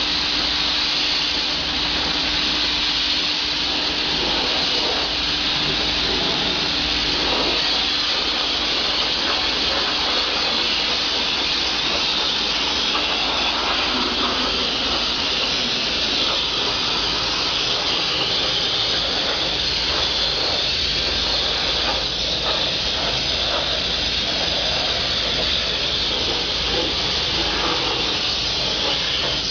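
Compressed air hissing steadily from a paint spray gun as it sprays paint onto a car body.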